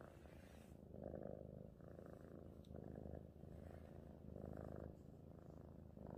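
Seal point Balinese cat purring quietly and contentedly while its chin and cheek are stroked, the purr swelling and fading in a steady rhythm about once a second.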